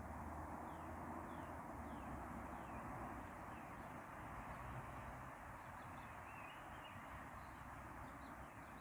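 Geese calling faintly in many short, falling calls, repeated over a steady hiss of outdoor background noise.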